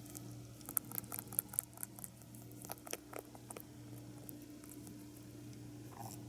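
A sleeping pet rabbit's faint mouth and teeth clicking as it chews in its sleep, a scattered run of small quick clicks mostly in the first half, over a steady low hum.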